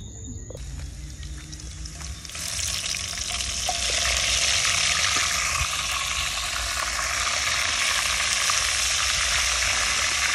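Shrimp frying in a pan: a sizzle that swells about two seconds in, then holds loud and steady.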